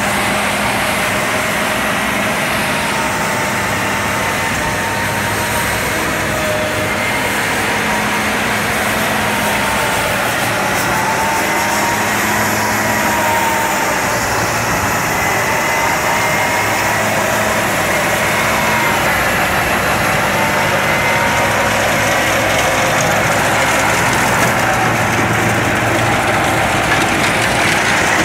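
New Holland T7200 tractor running steadily, with a whine that wavers slowly up and down in pitch over a broad mechanical din.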